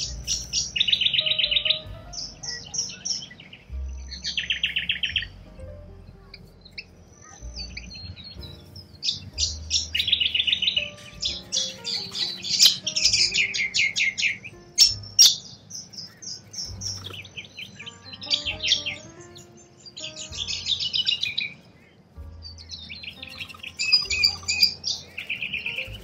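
Birds chirping and calling in quick rattling trains, each burst lasting a second or two, repeating with short pauses throughout.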